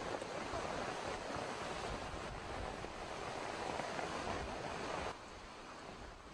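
Hurricane wind and surf rushing as a steady, even noise, which drops abruptly to a quieter level about five seconds in.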